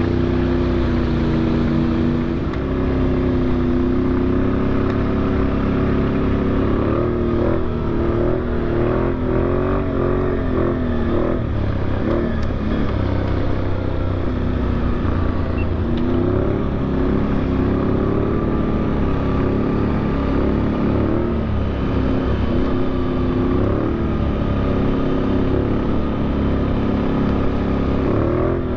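ATV engine running while riding a gravel trail, its pitch rising and falling repeatedly with the throttle, over a steady low rumble.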